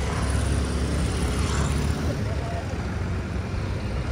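Steady low rumble of a motor vehicle's engine, with faint voices in the background.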